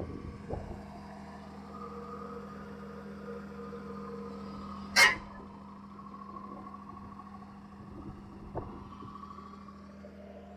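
Backhoe's engine running steadily, with one sharp, loud clank about five seconds in and a few lighter knocks.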